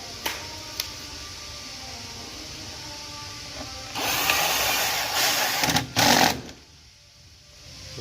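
Power drill-driver running a screw into plastic trim: one loud run of about two and a half seconds starting halfway through, with a brief break near its end. Two light clicks near the start, over faint background music.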